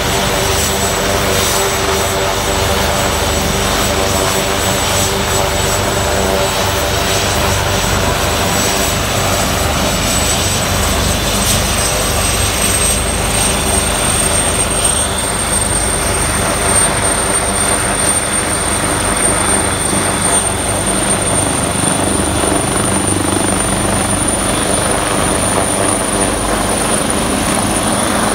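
Twin-turbine firefighting helicopter running close by with its rotor turning: a steady high turbine whine over the rotor's rumble. The whine rises in pitch about halfway through and keeps climbing slightly as power comes up for lift-off.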